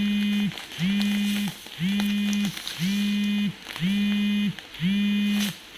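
A low, even buzz pulsing on and off about once a second, each pulse about half a second long, sliding up in pitch as it starts and dropping as it stops.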